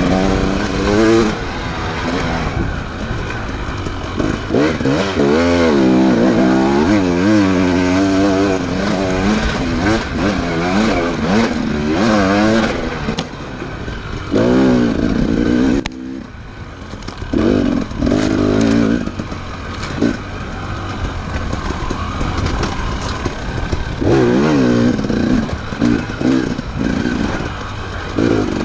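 Off-road enduro motorcycle engine revving up and down over and over with the throttle, its pitch rising and falling every second or so. It eases off briefly a little past halfway, then picks up again.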